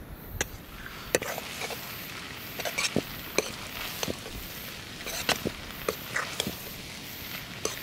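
Poha cooking in a pan, with irregular sharp clicks and taps over a steady faint hiss.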